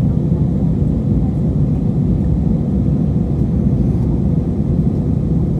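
Airliner cabin noise after takeoff: a steady low rumble of jet engines and rushing airflow, with a faint steady hum above it.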